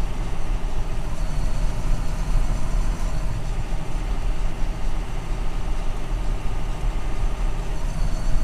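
John Deere 6920 tractor's six-cylinder diesel running steadily under load, heard inside the cab. It is driving a RAU Kombi power harrow and pneumatic seed drill through its PTO while sowing peas.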